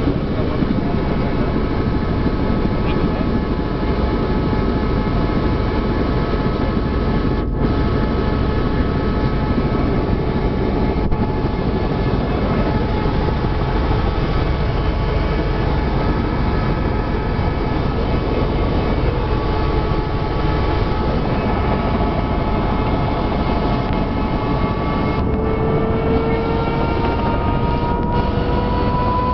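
Helicopter turbine engine and rotor running on the ground, heard from inside the cabin: a loud, steady drone with a whine. The whine begins to rise in pitch over the last few seconds.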